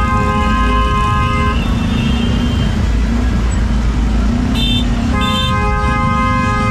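Vehicle horns in road traffic. A horn is held on one steady chord, breaks off about a second and a half in, and comes back near the end. Two short, higher toots from another horn sound in between, over a steady rumble of traffic.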